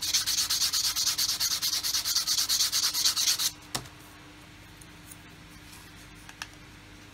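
Rapid back-and-forth hand sanding of a styrene plastic model-kit part with a sanding stick, taking down the lugs that spoil the fit. It stops about three and a half seconds in and is followed by a single light knock as the tool is set down.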